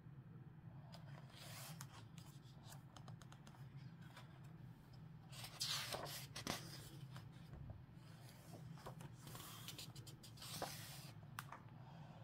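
Pages of a hardcover book turned by hand: paper rustling and sliding in about three faint bursts with small clicks, the loudest about six seconds in. A low steady hum runs underneath.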